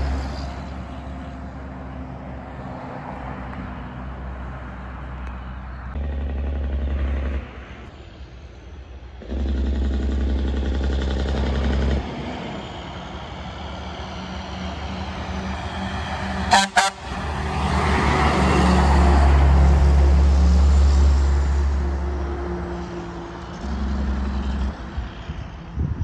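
Diesel dump trucks passing on a road: engine drone and tyre noise rise and fall as trucks come and go, loudest as one goes by about three-quarters of the way through. A brief sharp sound stands out about two-thirds in.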